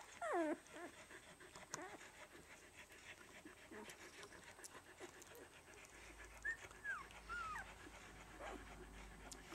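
Week-old rough collie puppies making thin, falling squeaks and whimpers while nursing, over faint clicking suckling sounds. A couple of squeaks come at the very start and a few short ones a little past the middle.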